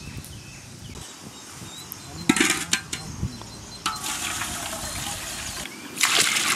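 Water pouring in a heavy stream into a large metal cooking pot, rushing and splashing. The pour breaks off briefly and starts again louder near the end.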